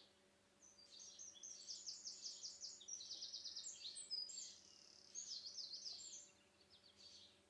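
A small songbird singing one long, fast song of rapid trills and repeated high notes, lasting about six seconds. Under it is a faint steady hum.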